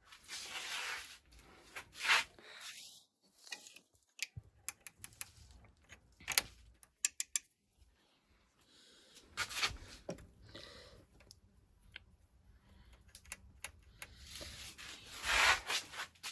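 Irregular clicks and knocks, with a couple of longer bursts of scraping noise, one near the start and one near the end.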